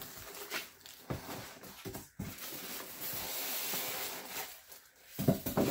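Cardboard and plastic packaging being handled: scattered clicks, a steady rustling scrape for a couple of seconds, then a few sharp knocks near the end.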